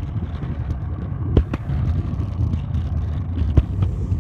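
Low, steady rumble of a scooter rolling over pavement, mixed with wind on the phone's microphone, with a few sharp knocks.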